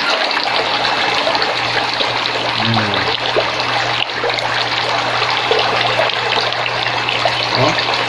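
Water running and splashing steadily around an upright PVC pipe in a shallow concrete eel nursery tank, with a low steady hum underneath.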